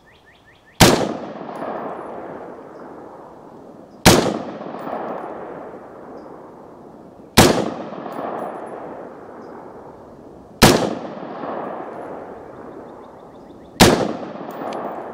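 Five single shots from a 16-inch AR-15 firing 5.56 mm 55-grain soft-point rounds, fired slowly about three seconds apart. Each sharp report trails off over two to three seconds.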